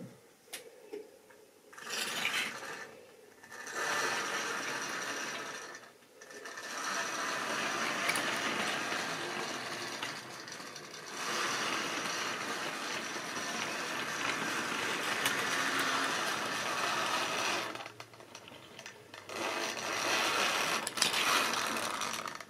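OO-gauge electric model train running along the track: a small motor whirring and the wheels rattling over the rails and points. The noise breaks off briefly a few times, with some sharp clicks at the start.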